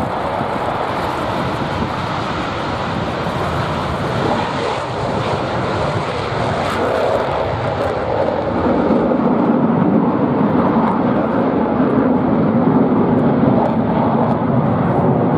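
Loud jet noise from the twin General Electric F414 turbofans of two Boeing F/A-18 Super Hornets taking off together and climbing away. The noise grows louder and deeper about eight to nine seconds in.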